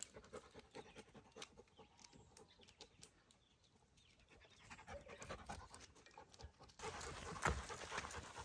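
A dog panting close by, with light footsteps; the sounds grow louder about seven seconds in.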